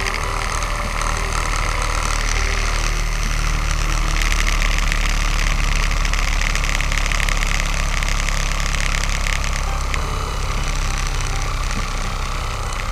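Small motor of a homemade mini chaff cutter machine running steadily with a whirring hum and a hissing noise, which grows harsher and a little louder from about three seconds in until nearly ten seconds in.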